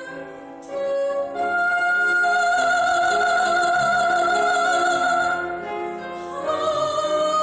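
Soprano singing in operatic style, holding long high notes with a wide vibrato. The song comes in loud about a second in and changes note once or twice.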